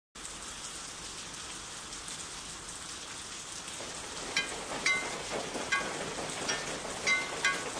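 Steady rain hiss. From about four seconds in, scattered short ringing plinks of drops land every half second or so.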